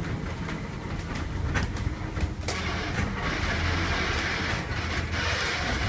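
Kuranda Scenic Railway train running along the track: a steady low rumble with scattered wheel clicks. A hiss joins in from about halfway through for a couple of seconds.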